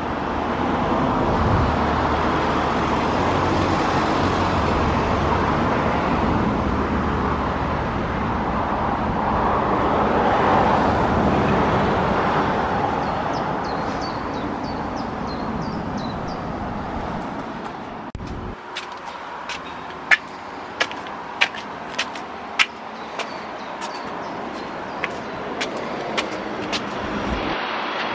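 Road traffic passing, its rumble swelling to a peak and fading away over the first fifteen seconds or so, with a few faint bird chirps. Then a quieter stretch with a string of sharp ticks, one about every half second.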